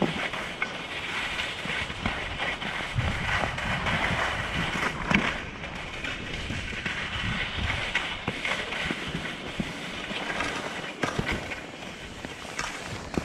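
Skis sliding over groomed packed snow: a steady scraping hiss, broken by a few short sharp clicks.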